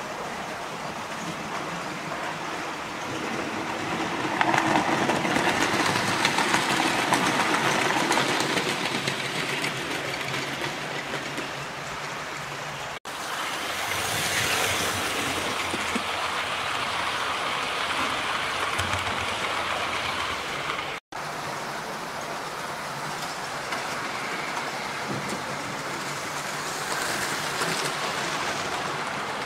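00 gauge model trains running around the layout's track, a steady mechanical running noise of wheels and motors. It swells as a train passes close, from about four to ten seconds in, and cuts out abruptly for a moment twice.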